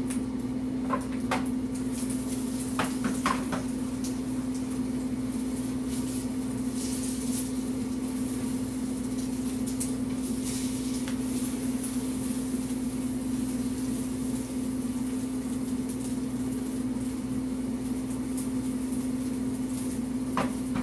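A steady machine hum, with a few light clicks in the first few seconds.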